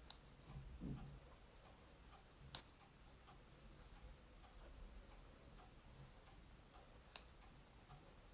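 Near silence broken by three sharp, isolated clicks a few seconds apart: scissors snipping as felted wool is cut into thin strips.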